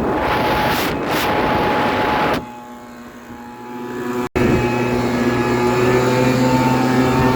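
Backpack leaf blowers running, an engine drone under a rush of blown air. About two and a half seconds in, the air blast drops away and builds back up. After a brief break the engine runs on steadily.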